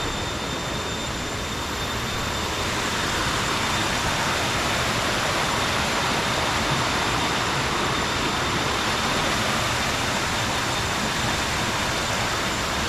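Waterfall water rushing steadily over rocks.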